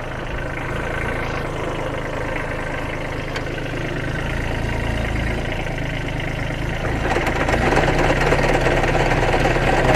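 Kubota A211N mini tractor's diesel engine running with its rear rotavator turning; the engine grows louder about seven seconds in.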